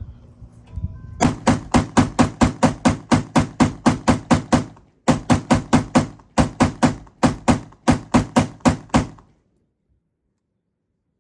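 AM-15 AR-style pistol firing rapid semi-automatic shots, about five a second, in long strings broken by two short pauses about five and six seconds in; the firing stops about nine seconds in.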